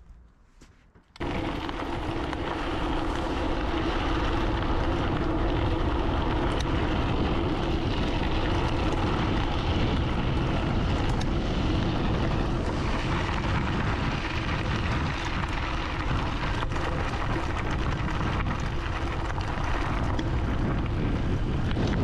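Wind rushing and buffeting over the microphone of a bike-mounted action camera as the e-bike is ridden, starting abruptly about a second in and holding steady.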